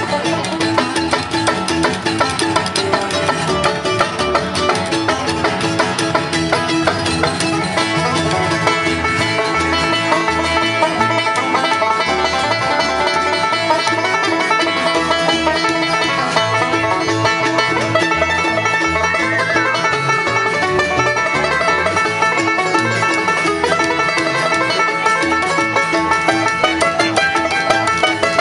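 Live bluegrass band playing, with the five-string banjo picking out front over acoustic guitar, mandolin and upright bass.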